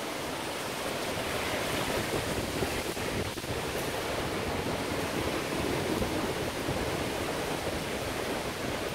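Typhoon wind and heavy rain: a steady rushing noise of gusting wind and falling rain, with wind buffeting the microphone.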